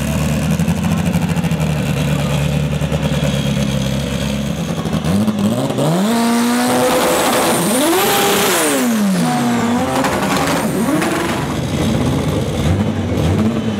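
Front-wheel-drive Honda Civic drag car's turbocharged four-cylinder idling with a steady low note, then, about five seconds in, revving up and down several times during a burnout as the front tyres spin.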